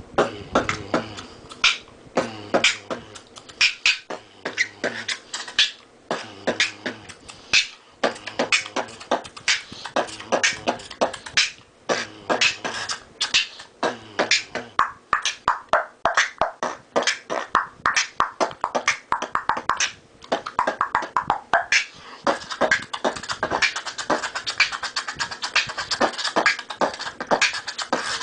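Human beatboxing into a cupped hand: fast mouth-made kick, snare and hi-hat sounds in a steady rhythm, with a low bass tone in repeated phrases. About two-thirds of the way through, a held higher tone joins and runs under the beat.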